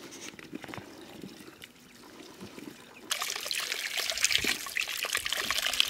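Water running from a pipe and splashing into a plastic basin as vegetables are rubbed clean under it, starting suddenly about three seconds in. Before that, only faint scattered clicks and knocks.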